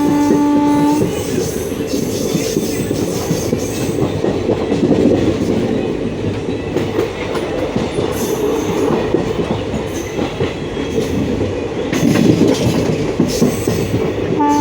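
A passenger train running on the rails, with wheels clattering and a steady rumble. A train horn sounds for about a second at the start, and it starts again at the very end.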